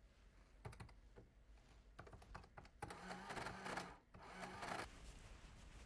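Faint typing on a computer keyboard, in quick runs of clicks.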